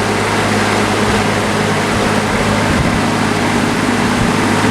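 Vintage Westinghouse all-metal box fan running steadily: a low hum from its shaded-pole motor under a broad rush of air from the blade.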